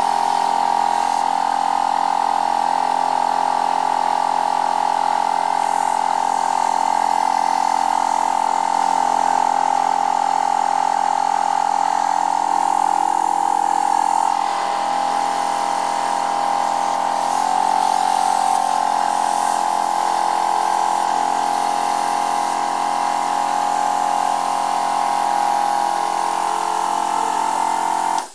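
12 V DC twin-cylinder portable air compressor running steadily while inflating a bicycle tyre, with a strong steady whine and motor hum. Its pitch dips slightly about halfway through, and it cuts off abruptly at the very end.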